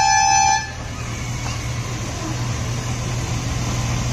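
Miniature joyride train sounding a single steady horn note that stops about half a second in. Its engine then runs with a steady low hum, growing louder as the train approaches.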